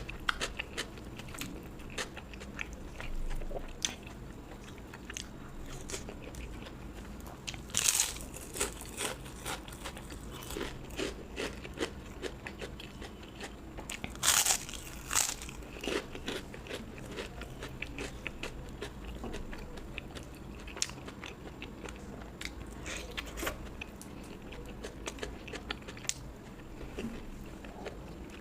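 A person biting and chewing crisp fried food: scattered soft chewing clicks, with louder crunches about eight seconds in and twice around fourteen to fifteen seconds in.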